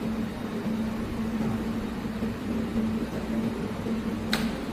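Automatic welding machine for corrugated metal hose running while its torch arc-welds around the hose end: a steady hum with a hiss over it. One sharp click near the end.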